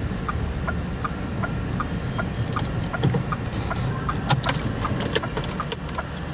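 Inside a car: a low engine and road rumble with a turn signal ticking steadily about three times a second. Around the middle comes a run of sharp rattling clicks.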